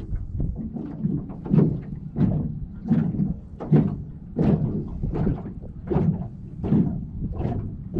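Small wind-driven waves slapping against the hull of a small flat-bottom boat, a hollow knock about every three-quarters of a second.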